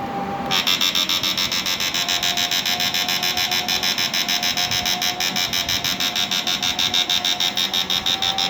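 High-power electric fishing machine (inverter) running on its SCR stage, giving a loud, rapid, even pulsing buzz over a steady whine. The pulsing starts about half a second in.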